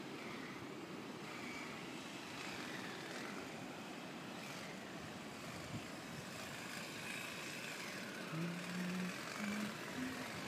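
Steady road and engine noise of a car being driven, with a few short low tones near the end.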